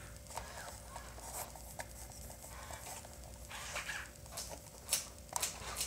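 Faint scattered clicks and light rattling over a faint steady hum, from a WowWee Robosapien toy robot shifting its arms under remote control.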